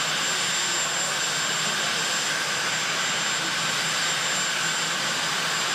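Marine One helicopter's turbine engines running steadily: a constant rushing noise with a thin high whine.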